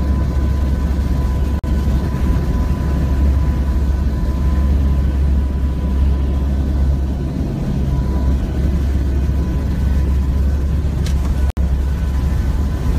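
Turboprop hurricane-hunter aircraft's engines and propellers droning steadily, heard inside the cabin, with a thin steady whine over the low drone. The sound cuts out for an instant twice, about a second and a half in and near the end.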